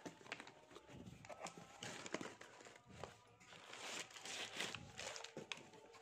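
Cardboard box flaps being pulled open and crumpled newspaper packing rustling and crinkling as it is lifted out, with scattered light knocks; the rustling is densest about four seconds in.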